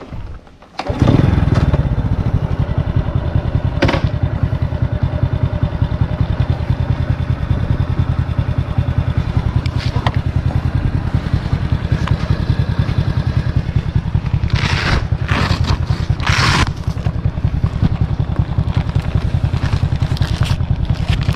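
Honda scooter's small single-cylinder engine starting about a second in, then running steadily. A few short scraping noises come over it about fifteen seconds in.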